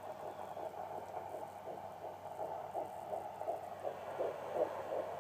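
Unborn baby's heartbeat played through a handheld fetal Doppler's speaker: fast, regular pulsing at a rate in the 150s per minute, a normal fetal heart rate.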